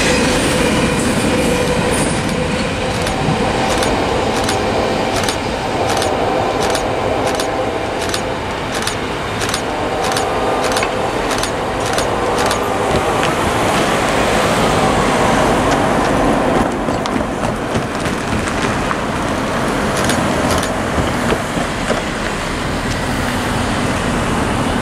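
Safetran Type 3 electronic crossing bells dinging about twice a second over the rumble of a freight train's last car rolling away; the bells stop about twelve seconds in, and then cars drive over the crossing.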